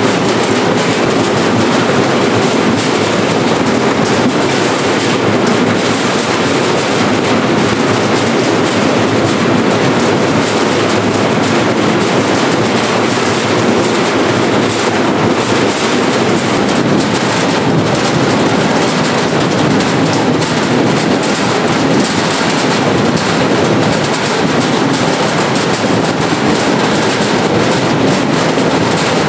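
Seed potato cutting machine running: its chain drives, conveyors and cutter clatter steadily as potatoes tumble through.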